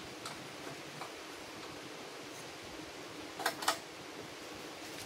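Steady background hiss like a running fan, with a few faint ticks and then two sharp clicks in quick succession about three and a half seconds in, from parts of the chop saw being handled.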